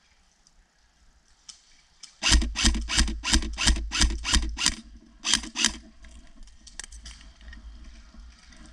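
Close airsoft gun firing a quick string of about nine shots, roughly three a second, then two more after a short pause.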